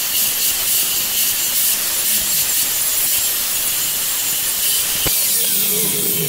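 Small angle grinder grinding a weld-filled rust hole flush on the steel of a Mazda MX-5's rear wheel arch: a steady grind that stops near the end.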